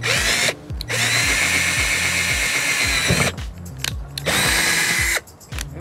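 Cordless drill running in three bursts, the middle one the longest, as it bores through a spoiler mounting bracket into a car's trunk lid.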